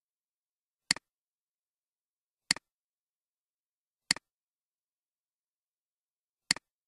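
Computer mouse clicks: four separate sharp clicks over the stretch, each a quick press followed by a softer release tick, with total silence between them.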